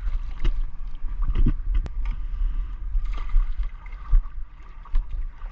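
Low rumble of wind on the microphone, with water noise and a few scattered knocks and clicks.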